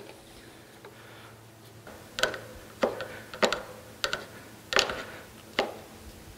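A hand wrench working new steel socket cap screws into the gearbox case of a surface grinder: about six sharp metallic clicks, under a second apart, starting about two seconds in.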